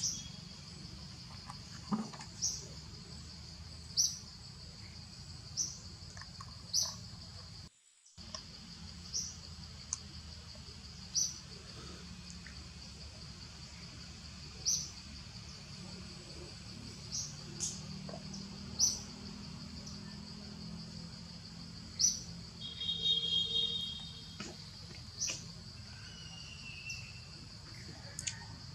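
Steady high insect drone from crickets or cicadas, with short high chirps repeating every second or two and a brief higher call near the end.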